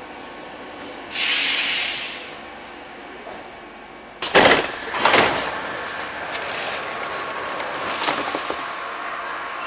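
Athens Metro Line 1 train's pneumatic door gear releasing a sharp hiss of air, followed by two loud thumps as the sliding doors close. A steady train running noise follows.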